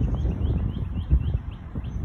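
Storm wind gusting and buffeting the microphone with a low rumble. Over it, a bird calls in a quick series of short, high, rising chirps, about five a second.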